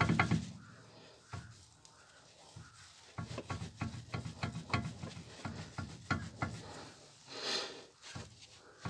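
Irregular clicks and knocks with some rubbing, from a car's front-end outer joint being worked back and forth: the joint has play, which the owner takes for the cause of a knock and a drumming noise when driving.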